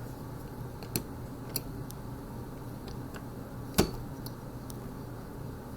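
Interior privacy doorknob clicking as its center-hole lock is worked with a stick pressed in against the pin while the knob is turned. There are a few sharp clicks, the loudest a little under four seconds in.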